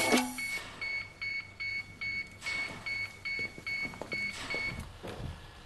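Short, high electronic beeps repeating steadily about two and a half times a second, which stop shortly before the end. A fuller, louder passage cuts off abruptly at the very start.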